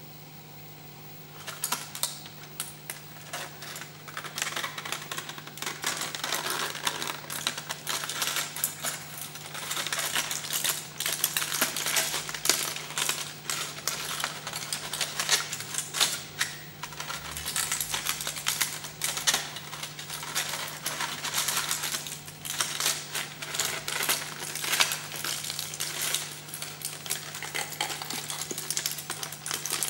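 Crumpled aluminium foil crackling as hands squeeze and fold it: dense crisp crinkles that begin about a second and a half in and come in uneven waves, over a steady low electrical hum.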